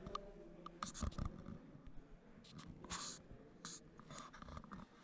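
Faint rustling, scuffing and clicking of a handheld camera being carried on foot across a carpeted room: handling noise and soft footsteps, with a few louder scrapes about a second in and near three seconds.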